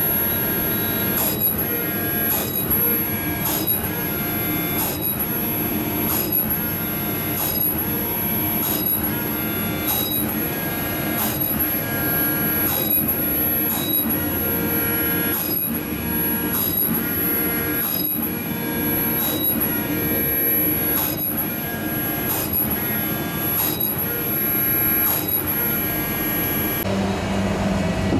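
Okuma VACIII spindle drive and spindle motor running under test: a constant high electronic whine and a hum of steady tones, with a regular tick about every three-quarters of a second.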